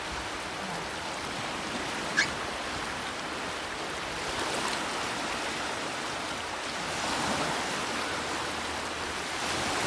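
Small waves washing onto a shallow sandy lake beach, a steady hiss of surf. A brief high squeak about two seconds in.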